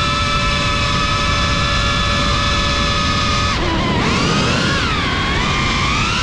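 GEPRC Cinelog 35 cinewhoop FPV drone's motors and ducted propellers whining over a steady rush of prop wash. The whine holds one pitch, drops about three and a half seconds in, then rises and falls again as the throttle changes.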